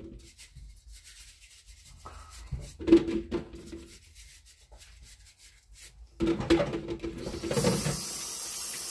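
Produce being scrubbed and rubbed in a stainless-steel kitchen sink, in scattered scraping strokes. The tap comes on about three-quarters of the way through, and water runs steadily into the sink.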